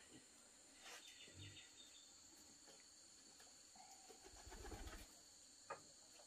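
Near silence: faint outdoor ambience with a steady high insect drone and a few soft bird sounds. Near the end there is a light knock as a wooden cup is set down on a bamboo table.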